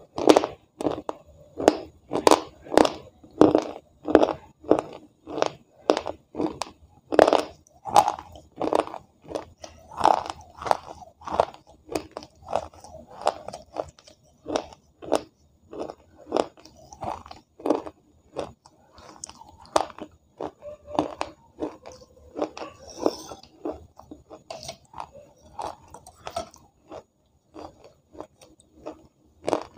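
Close-up chewing: a woman crunching wetted pieces of clay, with about two crunchy bites a second. The crunches grow sparser and softer in the second half.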